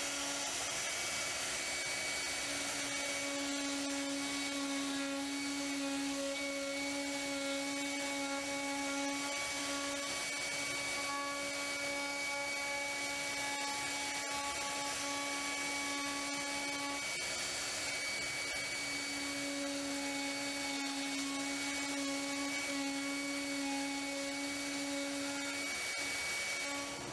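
CNC router spindle running with a steady whine as its end mill cuts a full-depth contour through 18 mm Baltic birch plywood. Its tone swells and eases a few times as the cut goes on.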